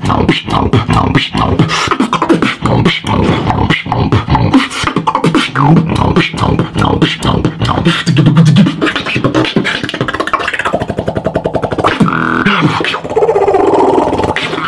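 Solo human beatboxing: a fast, dense pattern of mouth-made kick, snare and hi-hat sounds. About two-thirds of the way through it changes to a rapid, even buzzing roll, and near the end a hummed, bending tone is layered in.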